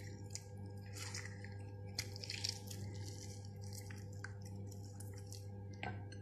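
Wet squishing and dripping as a cut green lime is squeezed by hand over raw chicken pieces and its juice rubbed into the meat, in short irregular bursts over a steady low hum.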